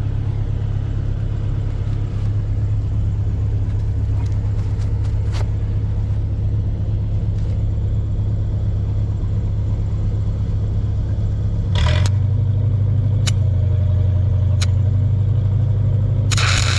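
Engine-driven welding machine running steadily, its engine note shifting about twelve seconds in. A few sharp ticks follow, and near the end a loud, harsh, steady crackle starts as the stick-welding arc is struck to close a weep hole on a pipe.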